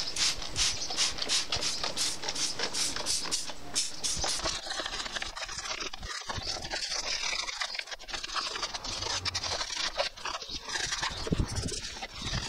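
Trigger spray bottle squirting degreaser onto a mower engine in a fast run of short squirts, then irregular rubbing and scraping over the engine cover.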